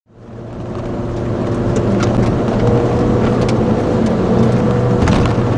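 Peugeot 206 RC's 2.0-litre four-cylinder engine running under load at a steady pitch, heard from inside the cabin, fading in over the first second. A few light clicks sit over it.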